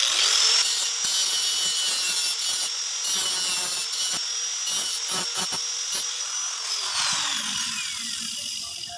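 Handheld angle grinder spinning up with a rising whine and grinding a small metal disc, a rough rasping sound over its steady high whine. About two-thirds of the way through it is switched off and winds down with a falling whine.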